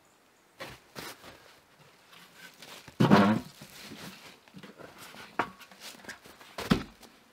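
A couple of light footsteps, then a large metal pan being handled: a loud clank with a short metallic ring about three seconds in, smaller knocks and scrapes, and a second ringing clunk near the end as it is set down.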